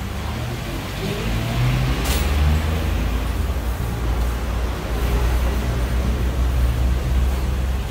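Motor vehicle engine running steadily as a low rumble, with one brief sharp hiss about two seconds in.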